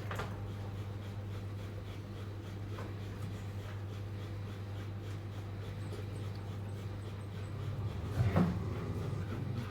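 A dog panting, with a short louder low-pitched dog sound about eight seconds in, over a steady low hum.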